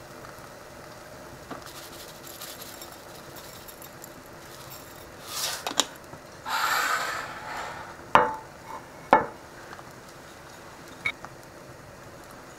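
A small plastic packet rustling as sesame seeds are shaken out over a dish, then two sharp clinks of ceramic dishes about a second apart, and a lighter tap near the end.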